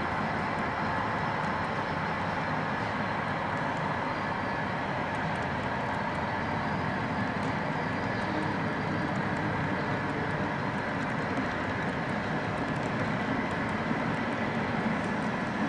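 HO scale model double-stack container train running steadily past, its wheels rolling on the track with an even rumble.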